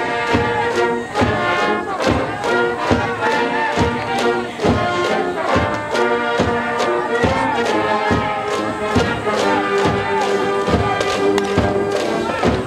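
High school brass band playing a cheering tune, with held horn notes over a steady, evenly spaced drum beat.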